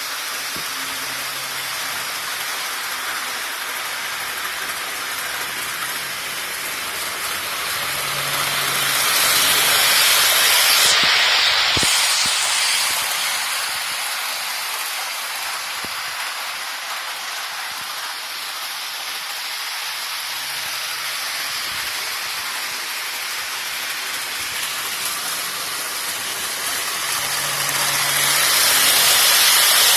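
Model train running on a layout track: a steady hiss of wheels and motor that swells as the train passes close, about ten seconds in and again near the end.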